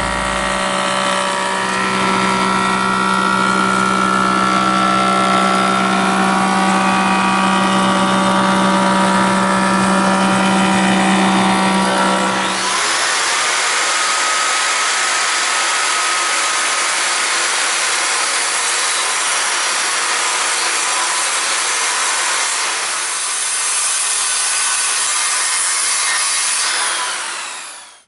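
Woodmaster thickness planer running steadily with a hum as a white oak slab feeds through. About twelve seconds in it gives way to a circular saw cutting along the slab's edge, a harsh hiss of blade in wood that winds down near the end.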